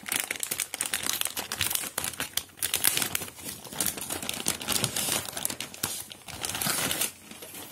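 A motherboard's anti-static shielding bag crinkling and crackling as hands handle it and slide the board out. The sound eases off near the end.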